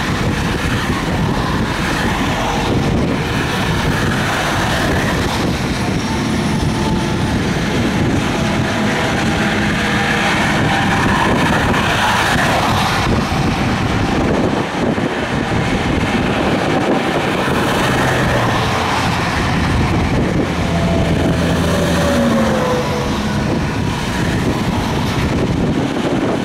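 Steady highway traffic noise as cars and semi trucks drive past, with tyre and engine sound and a few engine tones dropping in pitch as vehicles go by.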